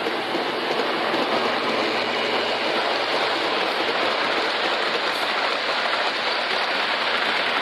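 Large-scale G gauge model train running on the track, a steady rushing clatter of wheels on rail.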